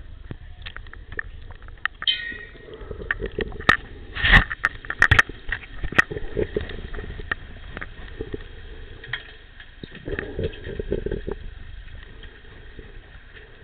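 Underwater sound from a pool during underwater hockey: a steady low rumble with many sharp clicks and knocks, typical of sticks and the puck striking each other and the tiled pool floor. A cluster of louder knocks comes about four to five seconds in.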